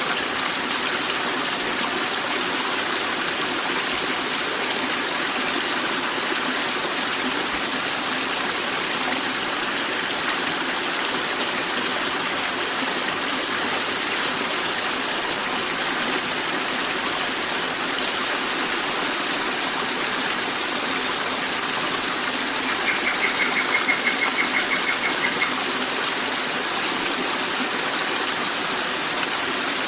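Forest river flowing in a steady, unbroken rush. About two-thirds of the way through, a short, rapid run of high chirps sounds for about two seconds.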